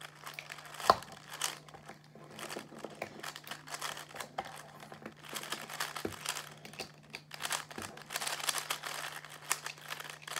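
Plastic speed cube being turned rapidly during a solve: a dense, irregular clicking and clacking of its layers, with one sharper knock about a second in.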